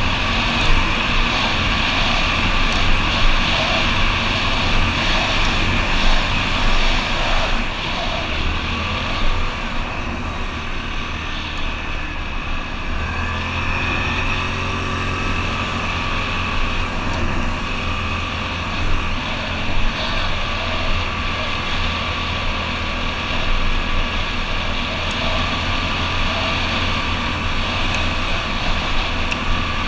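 ATV engine running while riding a trail, its note shifting a little with the throttle, with occasional short knocks and rattles.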